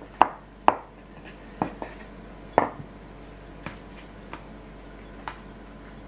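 Hands rolling and shaping bagel dough on a wooden tabletop, with a series of sharp knocks as the hands and dough strike the wood. Three strong knocks come in the first three seconds and fainter ones follow.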